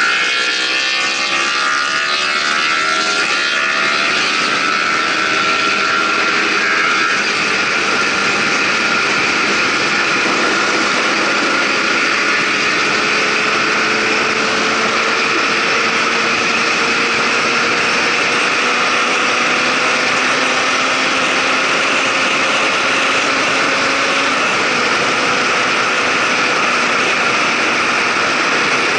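Motorcycle engine pulling under acceleration at highway speed, its note rising slowly through most of the stretch, under heavy, steady wind rush on the microphone.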